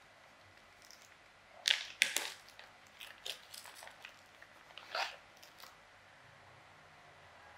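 Several sharp clicks and scraping knocks of small hard objects being handled. The loudest come about two seconds in and again about five seconds in, with lighter taps between them.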